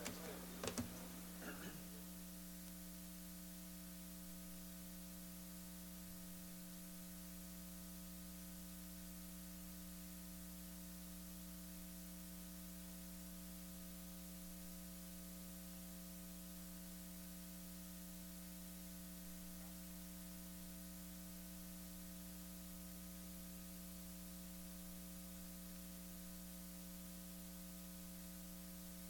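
Steady electrical hum from the chamber's sound system, several fixed tones over a faint hiss. A few faint clicks come in the first two seconds.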